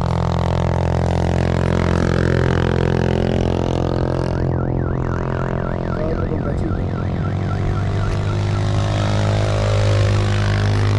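Background music with a steady low droning tone. A warbling high tone joins about four seconds in and fades out near the end.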